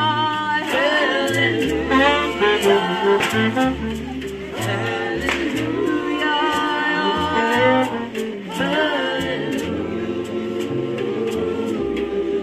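Small band playing live: a saxophone and voices singing the melody over a plucked upright double bass that steps from note to note, with a steady ticking beat from the drums.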